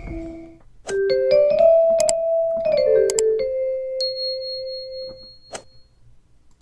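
Outro sound effect for an animated subscribe button: a short electric-piano jingle of a few notes stepping up and then down, with sharp clicks over it and a high bell-like ding near the end. The held tones of the previous background music stop just before it.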